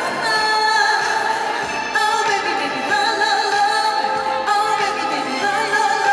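A woman singing a Korean pop song live into a handheld microphone over an instrumental backing track, with several long held notes.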